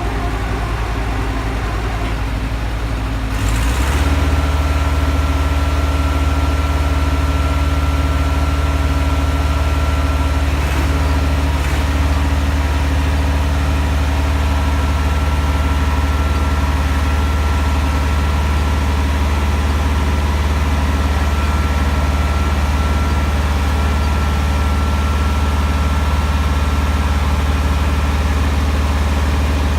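A heavy engine running steadily with a low drone, stepping up louder about four seconds in, with a thin steady whine over it.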